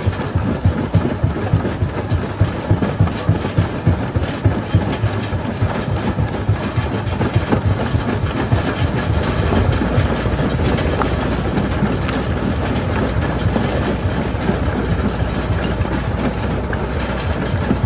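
Belt-driven stone jaw crusher running and crushing rock: a heavy mechanical clatter of rapid knocks, settling into a denser, steadier grinding clatter from about halfway.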